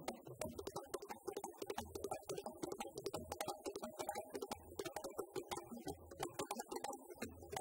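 Djembe drumming: a fast run of sharp hand slaps on the drumhead, with deep bass strokes recurring every second or so.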